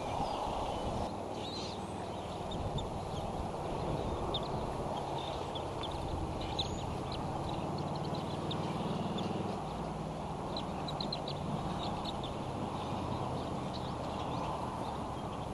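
Outdoor nest-cam sound: a steady low rumble of wind and ambient noise, with many short high chirps from birds scattered throughout.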